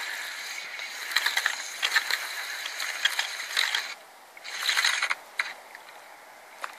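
Fishing reel being wound in to retrieve a hooked roach, its gears whirring and clicking in a long spell, then a shorter one after a brief pause about four seconds in.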